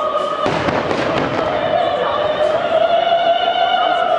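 Fireworks bursting and crackling, with a sharp bang about half a second in, over operatic singing that holds long notes.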